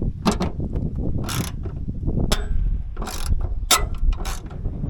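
Socket ratchet clicking in short, uneven strokes as a stiff 13 mm bolt is worked loose.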